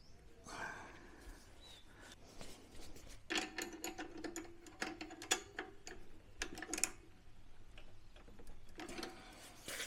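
A spanner tightening a nut on a mower engine: runs of quick metallic clicks with a faint metallic ring, in a few short bursts.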